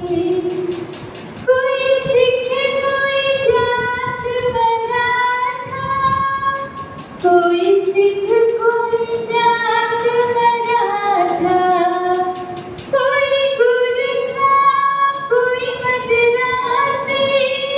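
A young student singing a song in long held phrases, with short breaks between phrases about a second and a half, seven and thirteen seconds in.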